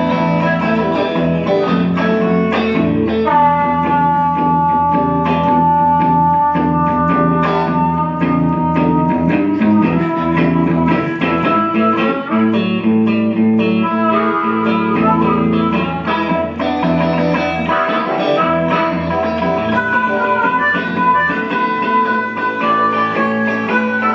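Electric blues played on guitar in an instrumental break between sung verses: a lead line with a long held, slightly bending note a few seconds in, over a steady low accompaniment.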